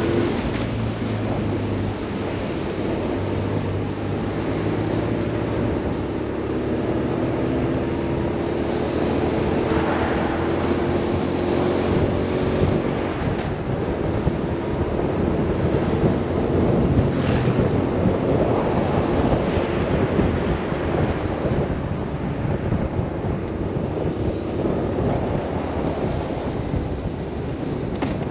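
BMW R 1150 RS boxer-twin engine running under way, with wind rushing over the microphone. The engine's note is plain for the first dozen seconds or so, then the wind noise grows and covers much of it.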